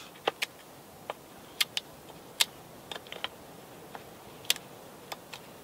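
Knife point snapping off the thin slivers of wood left between closely spaced saw cuts, clearing the waste out of a notch: a dozen or so small, sharp cracks at irregular intervals.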